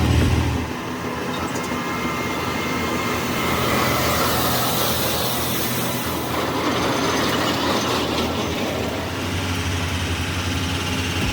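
Steady rumbling, rushing running noise of a heavy vehicle on the move. A low engine drone drops away about a second in and comes back near the end.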